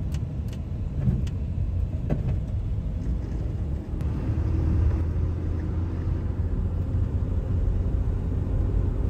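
Vehicle engine and road noise heard from inside the cabin while driving: a steady low rumble.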